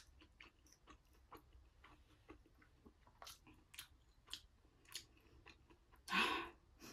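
Close-miked chewing and mouth sounds of a person eating curry, with small irregular wet clicks. A louder half-second noise about six seconds in.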